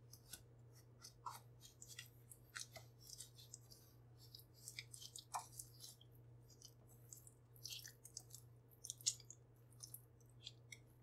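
Silicone spatula stirring sugar into mashed banana in a glass bowl: irregular soft crackling clicks and scrapes, with a sharper click about nine seconds in.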